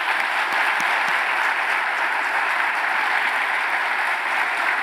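Church congregation applauding together, a steady, dense clapping that holds at an even level.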